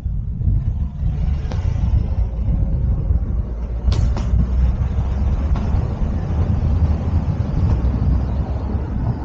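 A car driving on a road, heard through a camera held out of its sunroof: a steady, low, unsteady rush of wind and road noise. Two sharp clicks come close together about four seconds in.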